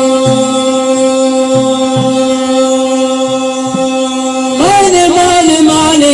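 Music from an Iraqi lament: one long note held steady over soft low drum beats. About four and a half seconds in, a new sung line begins, its pitch bending up and down.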